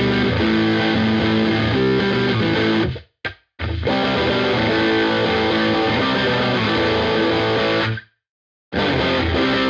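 Epiphone Les Paul Black Beauty electric guitar, a three-humbucker Les Paul, played with a distorted tone: ringing chords that are cut off abruptly about three seconds in and again near the end, each time followed by a brief silence before the playing resumes.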